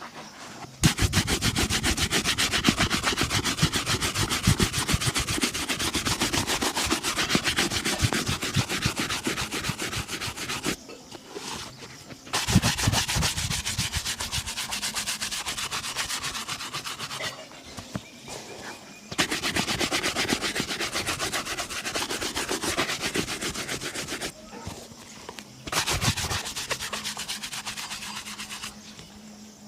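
Fast back-and-forth buffing strokes on a shoe during a shoe shine. The strokes come in four long spells, separated by short pauses about ten seconds in, about seventeen seconds in and about twenty-four seconds in.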